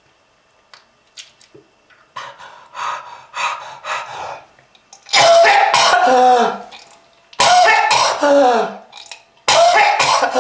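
A person coughing hard in fits: a few shorter coughs, then three long, harsh bouts, each trailing off into a falling voiced sound.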